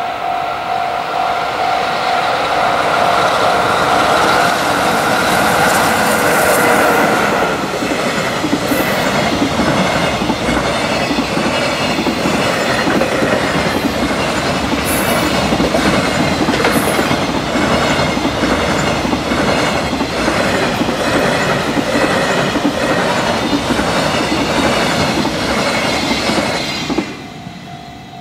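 Long freight train passing close through a level crossing: the head end goes by first, then the container wagons clatter over the rail joints in a steady repeating rhythm. The wheel noise stops suddenly near the end, leaving the crossing's warning bell ringing in a steady tone.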